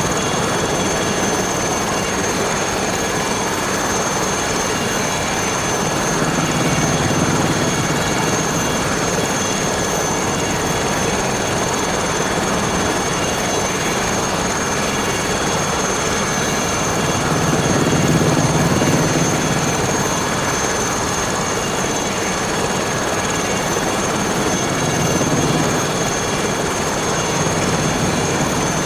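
Aérospatiale SA 315B Lama helicopter running, its single Turbomeca Artouste turboshaft giving a steady high whine over the rotor noise. The rotor sound swells three times, as the power changes during landing practice.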